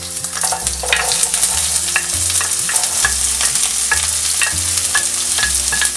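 Diced white onion sizzling in hot oil and browned cumin seeds in a frying pan as it is tipped in and stirred with a wooden spatula. The sizzle swells just after it starts, with light ticks from the spatula on the pan about twice a second.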